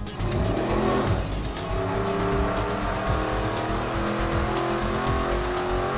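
ProCharger-supercharged engine on an engine dyno running a loaded RPM sweep, its revs climbing steadily through the pull. Music plays under it.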